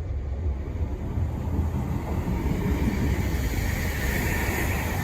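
A Class 165 Turbo diesel multiple unit moving through the station: a steady low diesel drone with a hiss of wheel and engine noise that grows louder toward the end.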